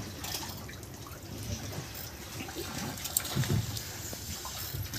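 Sea water sloshing and lapping against the hull of a small boat.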